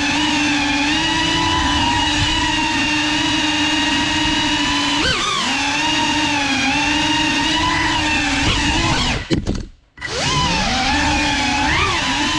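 CineLog35 cinewhoop FPV drone's brushless motors and ducted propellers whining at a steady pitch that bends up and down with the throttle. About nine seconds in there are a few sharp knocks and the motor sound drops away almost to silence, then the whine rises back in pitch as the motors spin up again.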